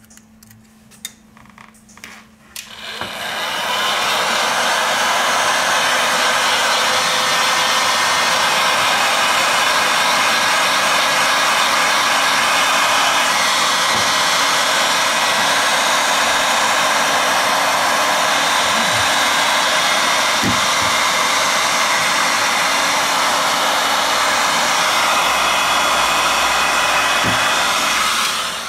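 Heat gun blowing air steadily, switched on about three seconds in and cut off at the very end, with a few light clicks of handling the phone parts before it starts.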